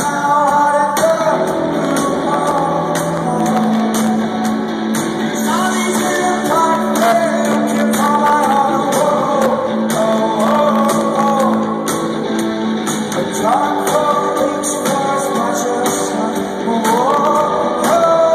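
Indie rock band playing live in a concert hall: a lead vocal sings a melody that glides between notes, over a steady bass line and a regular drum beat.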